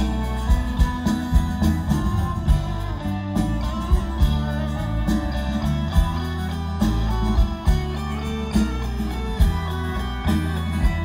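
Live folk-rock band playing an instrumental passage: guitar to the fore over bass, drums and keyboard, with steady drum hits.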